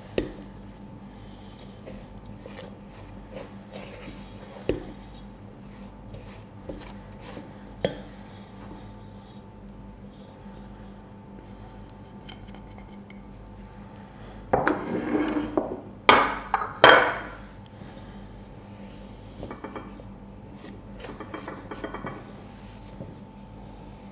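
Wooden spoon stirring stiff shortbread dough in a stainless steel mixing bowl, scraping and knocking now and then against the metal side. About two-thirds of the way through, a louder stretch of scraping and clatter with two sharp knocks as more flour is tipped in from a ceramic plate, then softer scraping.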